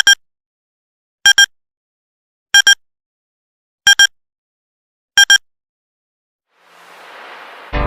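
Electronic double beeps, each a pair of short high-pitched tones, repeating about every 1.3 seconds five times. Then, after a short silence, a rising hiss swells up into music that starts right at the end.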